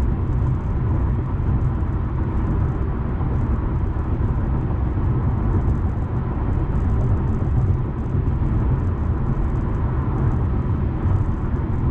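Steady low road rumble inside a Honda Accord's cabin while cruising on a freeway, even and unchanging throughout.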